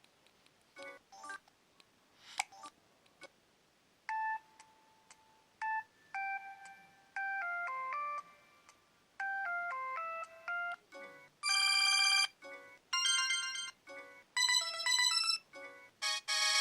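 Samsung D900i mobile phone playing its preloaded polyphonic ringtones, short bits of different electronic melodies one after another with brief gaps, the tone colour changing from one ringtone to the next. The first few seconds hold only short scattered notes.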